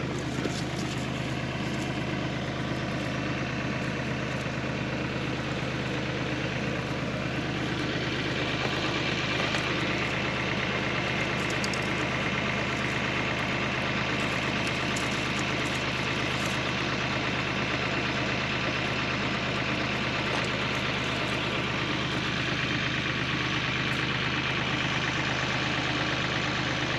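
Bobcat CT2040 compact tractor's diesel engine idling steadily, a little louder from about eight seconds in.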